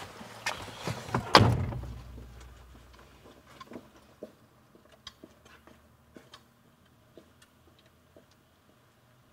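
A car door slammed shut about a second and a half in, after a few lighter clicks of the handle and door. Then only faint, scattered taps and ticks.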